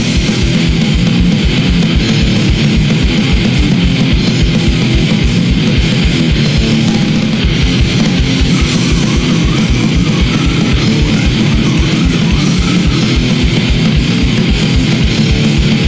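Loud heavy rock music with guitar over a fast, steady low beat.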